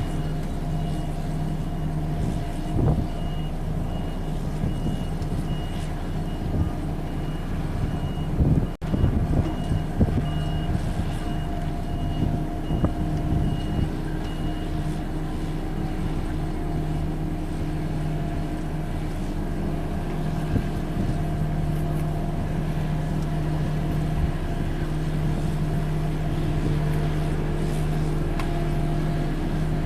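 Mini excavator's diesel engine running steadily as it drills soil. A reversing alarm beeps repeatedly through the first half, and a few knocks come about a third of the way in.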